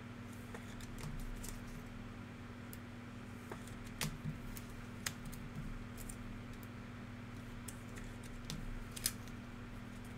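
Scattered light clicks and taps, a few sharper ones about four, five and nine seconds in, over a steady low electrical hum.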